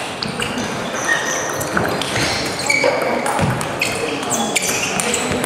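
Table tennis rally: the ball clicking back and forth off the bats and the table in quick succession, with short high squeaks from the players' shoes on the gym floor.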